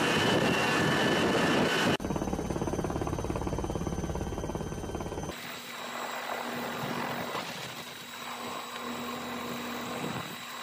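Helicopter noise across several cuts. A loud rushing noise comes first, then about two seconds in a fast, even rotor chop. From about five seconds in comes the steadier hum and whine heard at the open cabin door of a helicopter hovering over the sea during a winch rescue.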